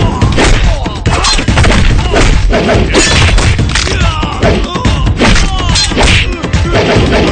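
Film fight sound effects: a series of heavy punch and kick hits, about one a second, with men's shouts and grunts between them, over background music.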